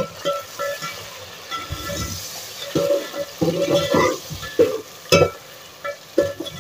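A steel spoon stirring chopped tomatoes and fried onions in hot oil in a metal pot, frying and scraping against the pot, with a sharp clink at the start and another about five seconds in. This is the tomatoes being fried into the masala for dal.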